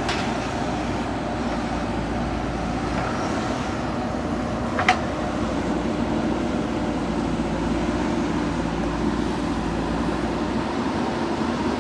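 Diesel engine of a JCB 3DX backhoe loader running steadily under work, with one sharp clank about five seconds in.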